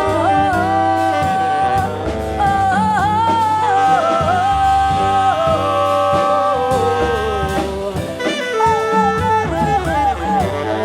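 Live jazz quintet playing: long held lead notes that waver and bend, from tenor saxophone and voice, over piano, double bass and drums.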